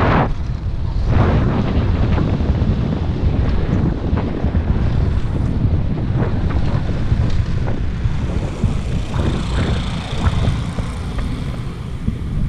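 Wind buffeting a helmet-mounted camera's microphone over a motocross bike's engine running at low revs as it rolls along slowly.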